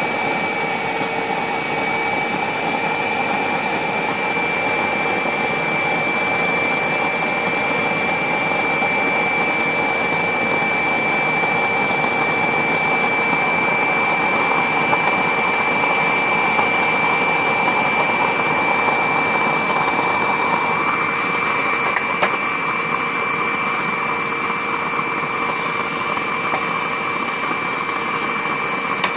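Electric air blower running steadily, forcing air into a used-oil stove burner: a constant whine over a rush of air and flame, settling at full speed just after the start.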